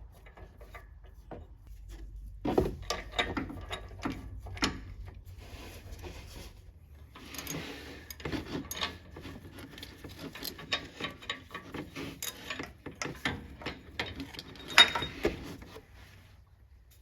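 Ratchet clicking with metal tool knocks and scrapes as an oxygen sensor socket is worked on the old exhaust oxygen sensor to loosen it, in irregular runs of sharp clicks.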